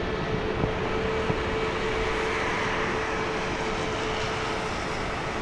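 Airbus A320neo's CFM LEAP-1A turbofans running at idle as the airliner rolls slowly on a wet runway after landing. A steady hum, which fades near the end, sits over a constant hiss.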